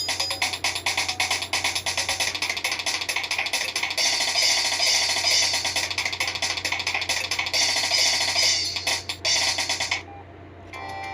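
A Samsung SGH-T319 ringtone playing on the phone: a busy, fast tune with drum-like percussion hits. It stops abruptly about ten seconds in, and after a short pause the next ringtone begins right at the end.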